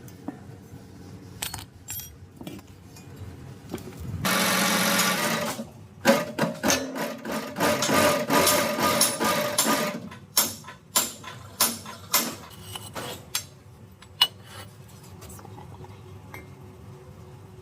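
Repair-shop tool noise: a buzzing mechanical burst of about a second and a half about four seconds in, followed by a rapid run of metallic clinks, taps and knocks, then scattered ticks.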